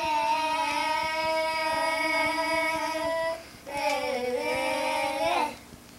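A child singing two long drawn-out notes. The first is held level for about three seconds; the second, after a short breath, is lower and wavers slightly, and it stops about a second before the end.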